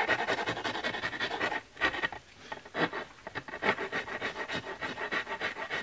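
A hand blade scraping and shaving the end of a dry spruce shovel handle in quick repeated strokes, with a short pause near two seconds in. This is fine-tuning the handle end, taking off high spots so it sits snugly in the shovel's socket.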